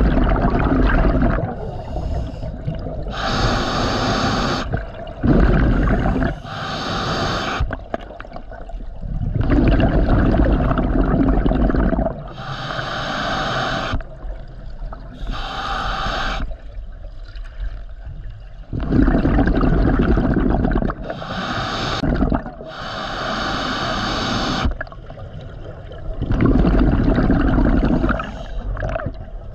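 Scuba diver breathing through a regulator: hissing inhalations alternate with loud bursts of exhaled bubbles, several breath cycles in a row.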